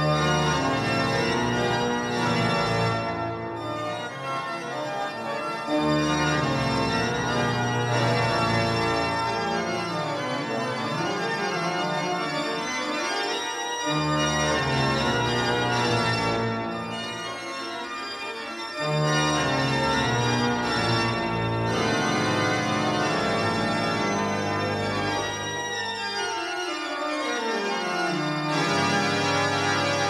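Pipe organ playing sustained full chords over deep pedal bass notes that change every few seconds, with a descending run near the end.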